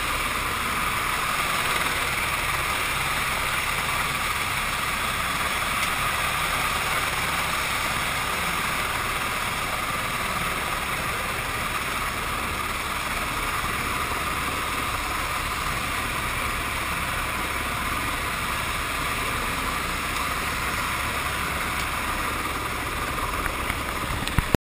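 Helicopter turbine engine and rotor noise, heard inside the cabin as a steady, even drone. Near the end there are a couple of short knocks.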